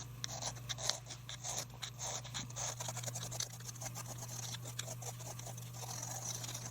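Small diamond needle file scraping in quick, short strokes on a pipe stem's button, where it is shaping the patch built up from super glue and carbon against the ebonite. A steady low hum sits underneath.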